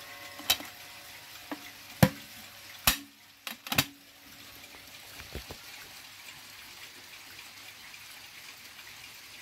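Knocks and bumps from the wooden case of a mantel clock being handled and set down, several in the first four seconds and one more just after five seconds, then a faint steady hiss.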